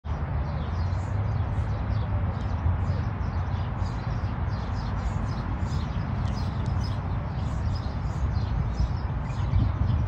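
Many small birds chirping rapidly and continuously, several calls a second, over a steady low rumble.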